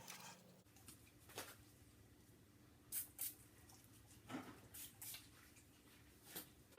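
Near silence, with a handful of faint, scattered squishes and taps of slime being handled and stirred in a bowl.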